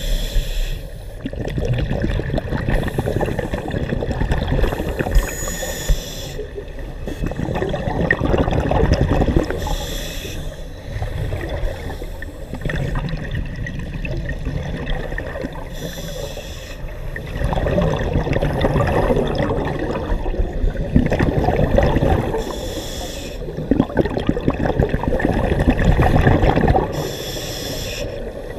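Scuba regulator breathing heard underwater: a short hiss of inhaled air every few seconds, with bubbling and gurgling from the exhaled air between breaths.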